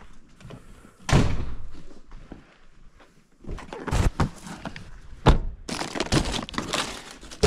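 Thuds, knocks and clicks of bags and gear being loaded into a car, with one heavy thunk about a second in and a sharp click a little past five seconds. Near the end comes a long rustle of plastic wrap as a shrink-wrapped pack of bottled drinks is handled.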